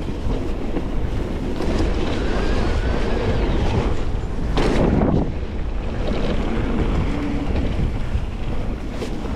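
Wind buffeting the microphone and bike tyres rumbling over a dirt and rock trail during a fast downhill run, with a brief louder rush about halfway through.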